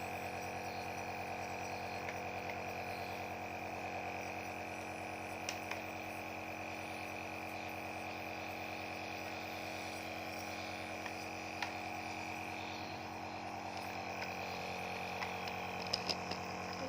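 Compressor nebulizer running with a steady electric hum, and a few faint clicks.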